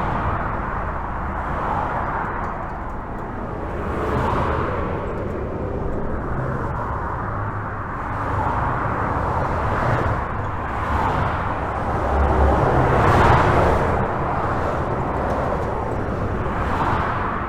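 Steady highway traffic heard from under a bridge: a continuous rush of tyres and engines with a low rumble, swelling every few seconds as individual vehicles pass, the loudest about thirteen seconds in.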